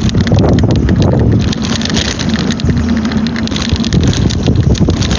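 A mobility scooter rides along, its electric drive humming steadily, while wind buffets and crackles on the phone's microphone.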